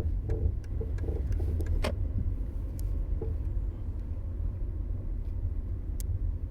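A 2006 Toyota Camry driving, with a steady low road rumble. Several sharp knocks come through in the first two seconds, the loudest about two seconds in, and one more near the end: the clunking the car makes over bumps and when steering.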